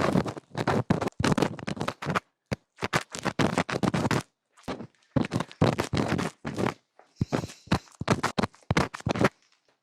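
Close-miked ASMR trigger sounds: rapid scratching and scraping strokes in clusters, broken by a few short silent gaps.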